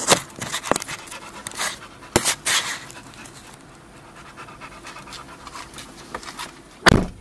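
An 8-month-old Rottweiler panting inside a car, with knocks and rustling from movement in the seats during the first few seconds. A loud thump comes near the end.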